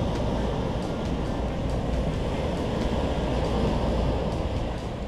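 Steady outdoor noise: wind rumbling on the microphone over the wash of sea surf.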